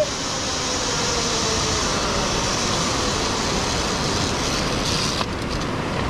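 Zipline trolley rolling along the steel cable: a steady rushing whir, with a faint hum that slides slightly lower over the first two seconds.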